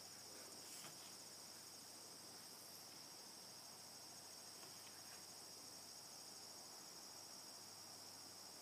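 Faint, steady high-pitched trilling of crickets, unbroken throughout.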